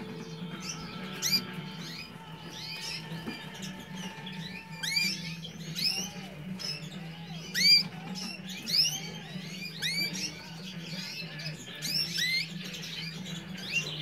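Irish Fancy canaries chirping: a run of short, sharp rising chirps, often several a second, with a few softer lower calls in the middle, over a steady low hum.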